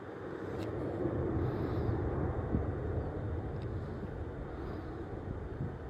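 Airbus A321neo's Pratt & Whitney PW1100G geared turbofans heard from the ground as a low, steady rumble while the airliner climbs away after takeoff, swelling slightly in the first second or so and then slowly easing.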